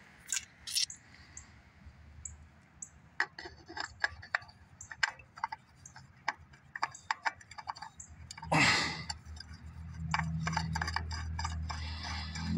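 A new oil filter being threaded onto the engine by hand: a run of small irregular clicks and ticks, a brief rustling burst about two-thirds of the way through, then a low steady hum in the last few seconds.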